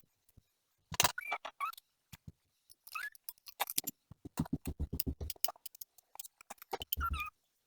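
Angle grinder packaging being handled during unboxing: irregular clicks, taps and short squeaks of cardboard and plastic, with a heavier thump near the end.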